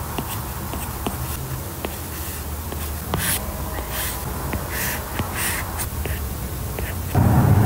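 Pen strokes scratching on paper, a few short scratches between about three and five and a half seconds in, over a steady low buzzing hum. A louder dull bump comes near the end.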